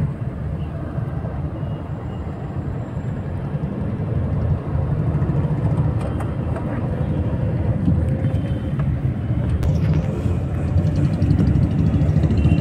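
City street traffic: motor vehicles running and passing in a steady low rumble that grows louder near the end.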